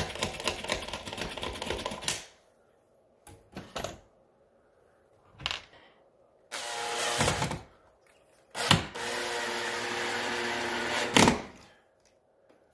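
A push drill clicking rapidly for about two seconds, then a cordless Makita drill/driver whirring in two runs, a short one and a longer steady one of about two and a half seconds, driving screws through a metal blind bracket into the window frame.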